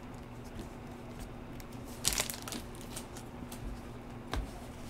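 Trading cards and foil pack wrappers being handled: faint rustling with a short crinkle about two seconds in and a light tap near the end, over a low steady hum.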